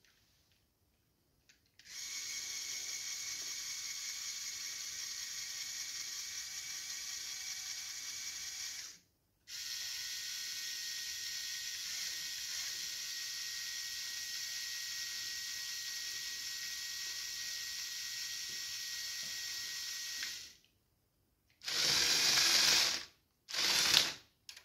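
LEGO Technic M motors driving the boom and hook winches through 8:1 gearing, a steady gear whine in two long runs with a short pause between. Near the end come two shorter, louder runs of motor and gear noise as the XL motors drive the tracks.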